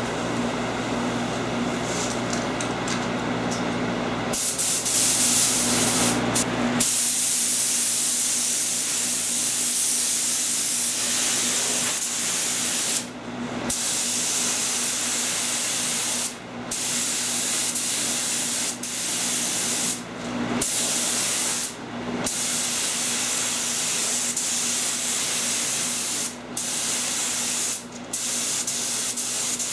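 Air spray gun spraying sealer onto car body panels and jambs: a steady hiss that gets louder about four seconds in and breaks off briefly about six times in the second half.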